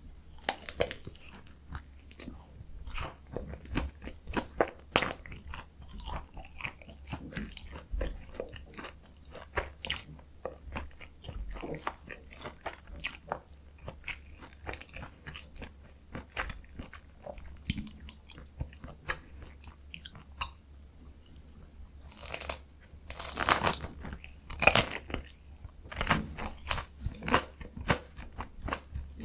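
Close-miked chewing of a potato-coated mozzarella corn dog: a run of crisp crunches and crackles from the fried batter and potato crust, with a louder burst of crunching bites a little over twenty seconds in.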